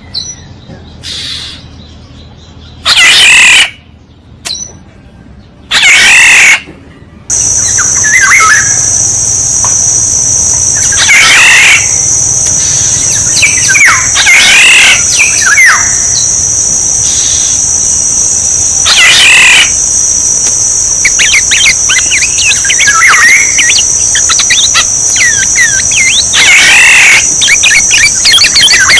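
Black-naped oriole calling: loud calls repeated every few seconds, with quicker chirps between them. A steady high-pitched drone starts abruptly about seven seconds in and carries on behind the calls.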